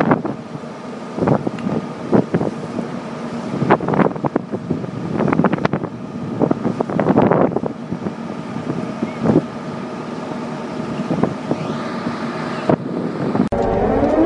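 A steady engine drone at the scene of a truck fire being hosed down, with frequent irregular pops and crackles over it. Near the end it cuts to a rising siren wail.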